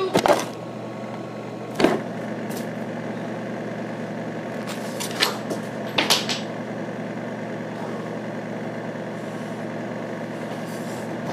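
A few sharp thumps and knocks, the loudest cluster right at the start, another about two seconds in and a pair about five to six seconds in, as the camera is bumped and moved during rough play with stuffed animals. A steady low hum runs underneath.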